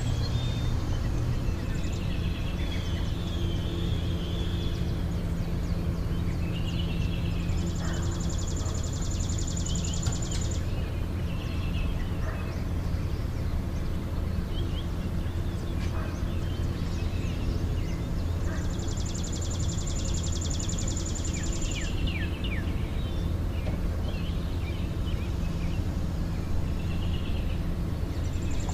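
Outdoor natural ambience: birds chirping over a steady low rumble, with a high, rapid buzzing trill that comes in three spells of about three seconds, roughly ten seconds apart.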